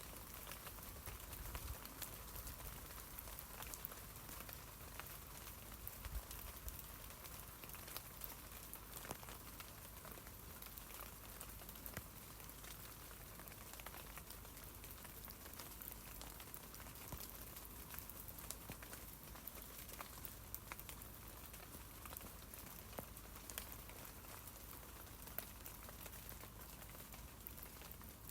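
Rain falling on tree leaves: a steady hiss of drops with many small, irregular taps from individual drops, under a low rumble.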